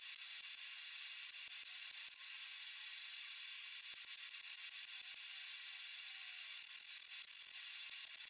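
Faint steady hiss, with scattered light ticks.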